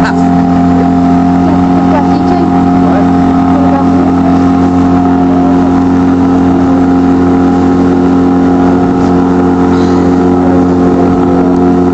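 Outboard motor on a wooden cot boat running steadily under way at a constant pitch.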